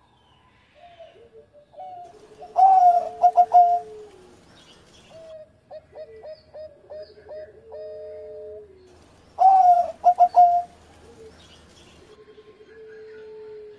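Zebra dove (perkutut) cooing: two loud bouts of quick, clipped notes about seven seconds apart, with softer rolling coos and held notes between them.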